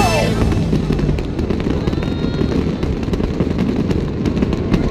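Fireworks display going off: a dense, continuous rumble of booms with many sharp crackles.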